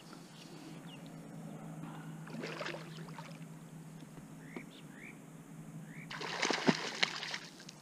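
A hooked carp splashing and thrashing at the surface of a pond as it is played toward the landing net. There is a smaller splash about two and a half seconds in and a louder burst of splashing lasting about a second and a half from around six seconds in. A few short rising chirps come in between.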